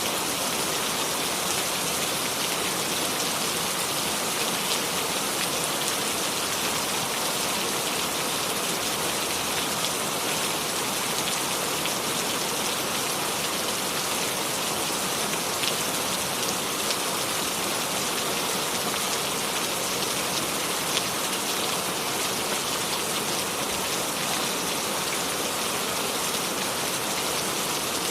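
Steady rain without thunder: an even hiss of rainfall with many fine drop patters.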